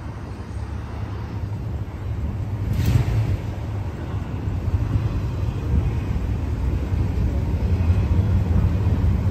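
Engine of a 1972 Ford F100 Ranger pickup running at idle, low and steady, growing louder over the seconds, with city traffic around it. A brief hiss comes about three seconds in.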